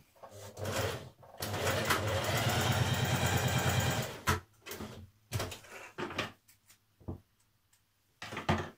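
Singer domestic electric sewing machine stitching a short seam: a brief start, then a steady run of about two and a half seconds that stops about four seconds in. Several separate clicks and knocks follow.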